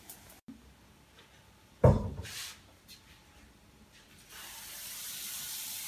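Pancakes frying in hot oil in a pan, the sizzle growing louder and steady from about four seconds in. About two seconds in there is a single sharp knock.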